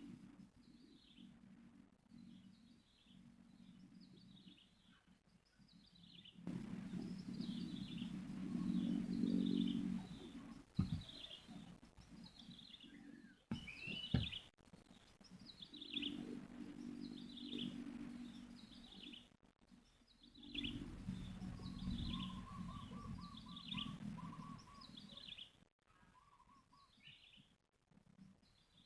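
A bird calling over and over with short, high, falling chirps, about one or two a second. A low hum comes and goes several times, there are two sharp knocks around the middle, and a brief rapid trill sounds near the end.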